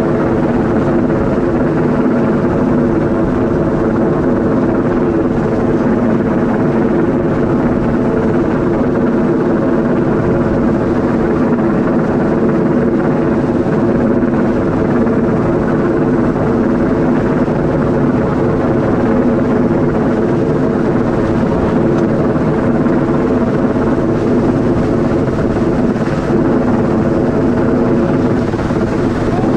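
Helicopter hovering close overhead: its rotor and engine run loudly and steadily, the pitch holding even throughout.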